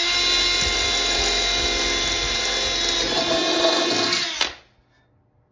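Milwaukee cordless drill boring a hole through the side wall of a metal cooking pot. The motor whines steadily for about four and a half seconds, then stops abruptly.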